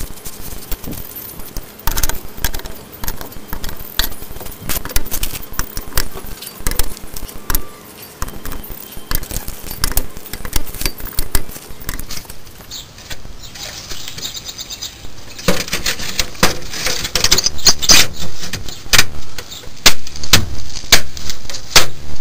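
Metal clinking and clicking as lug nuts are threaded and tightened onto a van's steel wheel. From about two-thirds of the way in there is a louder run of knocks as the wheel cover is fitted over the wheel.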